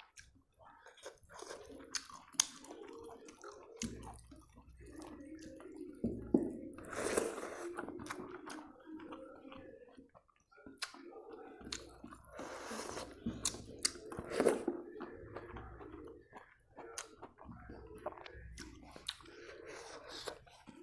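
Close-miked chewing and mouth sounds of a person eating rice with pork and Chinese-greens soup, with many short, sharp clicks scattered through.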